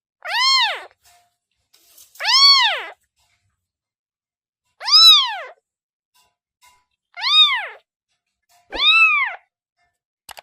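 A kitten meowing five times, roughly every two seconds. Each meow is short and high-pitched, rising and then falling in pitch.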